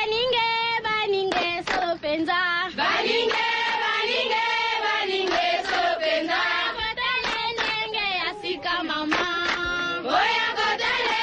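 Radio bumper music in African tribal style: a choir of voices chanting, with wavering sung notes and short percussive hits, playing out a caller.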